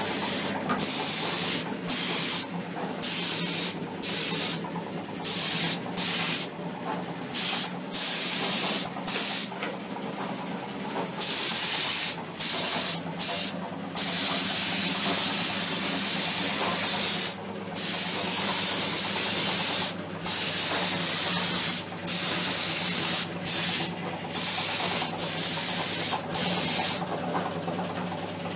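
Gravity-feed paint spray gun hissing in short bursts as the trigger is pulled and released, with several longer passes in the second half; the spraying stops near the end. A steady low hum runs underneath.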